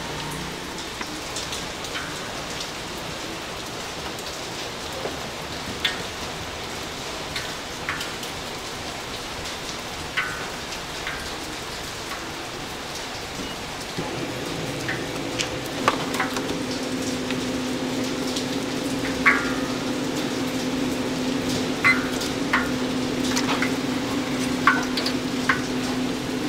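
Hot oil crackling and popping in a deep fryer as sweet potato balls fry, an even rain-like hiss with scattered sharp pops. A steady low hum joins about halfway through.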